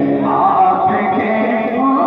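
A man singing a devotional naat, drawing out long held notes.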